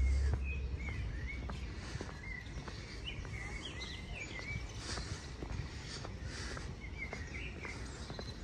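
Small birds chirping in several short bursts over a steady low background noise.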